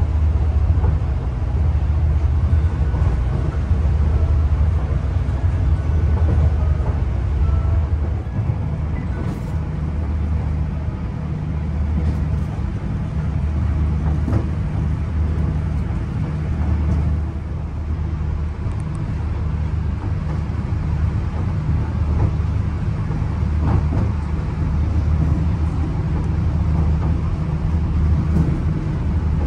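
Steady low rumble inside a moving diesel passenger train carriage, from the engine and the wheels running on the rails, swelling and easing slightly, with a few faint clicks.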